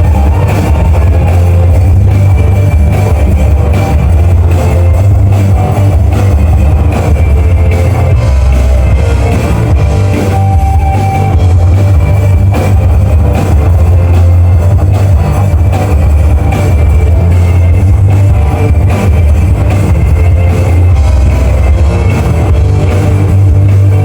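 Loud rock music with electric guitar and a drum kit over a heavy, steady bass.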